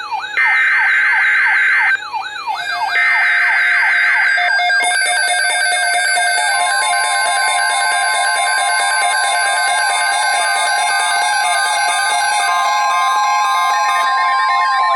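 NOAA Weather Radio emergency alert signal: two buzzy SAME header data bursts, each about a second and a half long, then the steady single-pitch 1050 Hz attention tone starting about six seconds in. Repeating rising-and-falling siren-like tones are mixed over it throughout.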